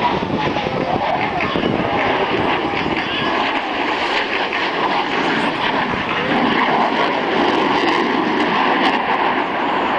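Twin-turbofan F/A-18 Hornet jets flying past. Their engines make a loud, steady rushing roar that swells a little in the second half.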